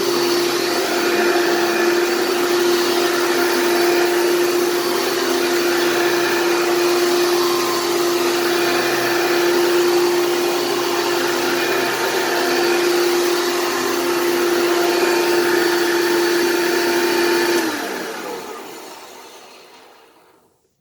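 Hoover PowerMax II upright vacuum cleaner running steadily with a strong whine, then switched off a few seconds before the end and winding down to silence. The owner takes the noise for the fan rather than the brush roll, and says the machine needs a new fan.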